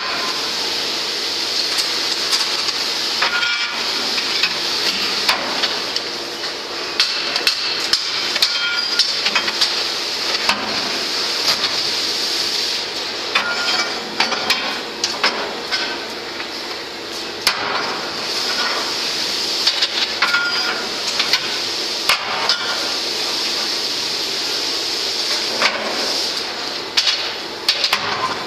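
A long steel rod clanking and knocking irregularly against a crucible of molten aluminium, with many sharp metal strikes over a steady furnace hiss.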